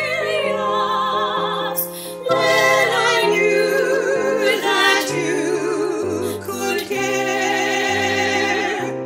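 Several women's voices singing together in a classical style with vibrato, over piano accompaniment, with a short breath-like dip in loudness about two seconds in.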